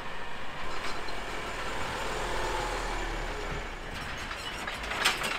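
Pickup truck driving slowly up to the camera and pulling alongside, its engine running steadily; the low engine hum drops away a little past the middle.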